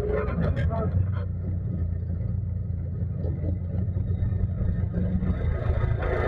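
Ecotec engine of a single-seat tube-frame rock crawler buggy running at low, steady revs, with brief voices in the first second.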